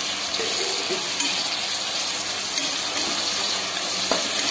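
Chopped tomatoes, onions and shallots sizzling in hot sesame oil in an aluminium pressure cooker while being stirred with a perforated metal ladle, a steady frying hiss.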